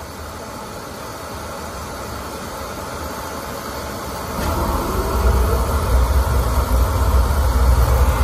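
Beckett oil burner motor and fuel pump running while air is bled from the pump after clogged filters were changed; about four and a half seconds in a deep rumble suddenly comes in as the burner fires and holds its flame.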